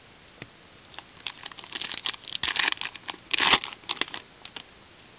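A 2013 Topps Magic trading-card pack wrapper crinkling and tearing as it is ripped open by hand. The crackling starts about a second in and comes in a quick run of sharp bursts, loudest about three and a half seconds in, then dies away.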